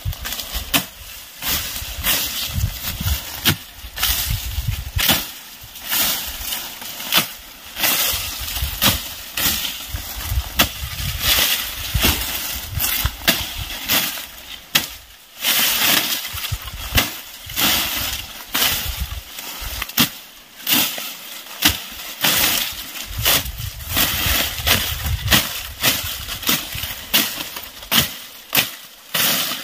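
Machete chopping through tall, dry grass stalks: repeated sharp chops at an uneven pace, with the rustle and swish of the cut stems.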